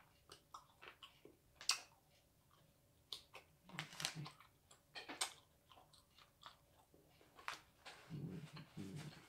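Close, quiet chewing and biting of a dried, pressed squid snack, with scattered small crackles and wet mouth sounds and a few louder bites.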